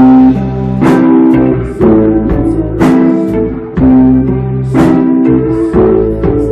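Live rock band playing loud: electric guitars hold distorted chords, with a crashing drum hit about once a second.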